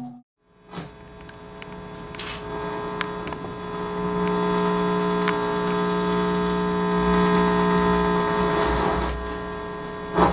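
Steady drone of many held tones over a low hum. It starts from a brief silence, swells over the first few seconds and eases off near the end.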